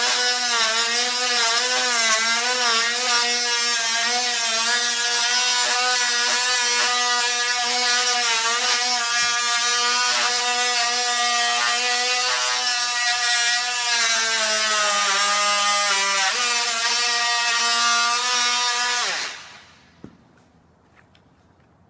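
Oscillating multi-tool buzzing as its blade cuts a groove into hardwood floorboards along a seam, its pitch wavering with the pressure on the blade. About 19 seconds in it is switched off and winds down, with one small click in the quiet after.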